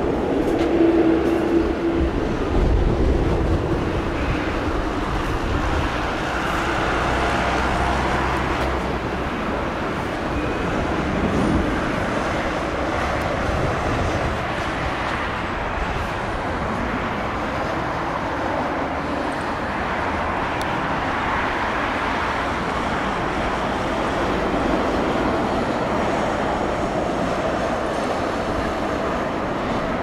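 Boeing 777 airliner's jet engines rumbling steadily as it lands and rolls out along the runway, the low rumble gusting unevenly in the first few seconds with wind on the microphone.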